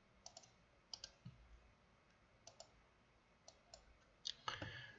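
Faint computer mouse clicks over near-silent room tone, several of them in quick pairs.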